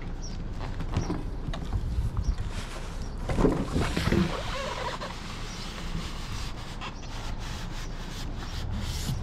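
Packing material from a new griddle's box being handled: cardboard and styrofoam rustling and scraping, with scattered clicks. A louder stretch of rubbing comes about three and a half seconds in.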